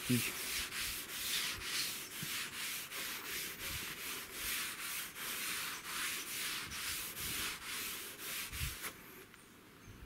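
Cotton rag rubbed back and forth over a bare timber board, working raw linseed oil into the wood: quick scrubbing strokes, about two to three a second, that stop about nine seconds in.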